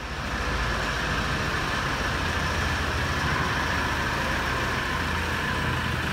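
Hyundai Grand Starex's 2.5-litre D4CB diesel idling steadily with an even diesel clatter. The engine is faulty: the mechanic traces it to excessive injection in the fourth cylinder, most likely from a stuck injector nozzle or valve.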